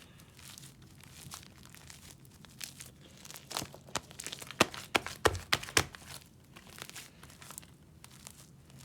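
Sticky slime mixed with shaving cream being kneaded and squeezed by hand, giving off irregular small clicks and pops, thickest about halfway through.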